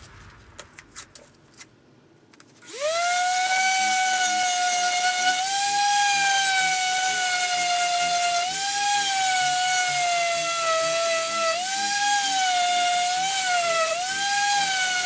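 High-speed handheld rotary tool starting up about three seconds in after a few handling clicks, then running with a steady high-pitched whine whose pitch lifts and sags slightly as it is worked against the part.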